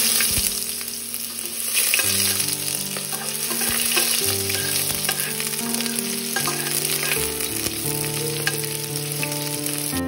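Chopped onion frying in hot mustard oil in a stainless-steel pot: a loud, steady sizzle that starts suddenly as the onion goes in. A metal slotted spoon stirs it, with a few light clicks against the pot. Soft piano music plays underneath.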